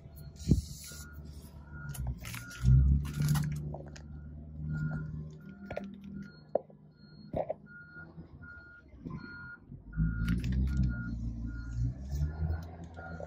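An electronic beep repeating about twice a second, over a low rumble and the close rustle and scrape of handling noise; the rumble swells twice, a couple of seconds in and again about ten seconds in.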